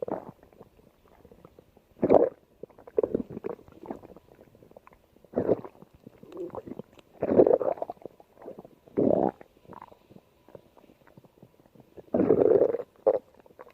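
Stomach growling: about seven irregular gurgling rumbles with quiet gaps between them, the longest one near the end.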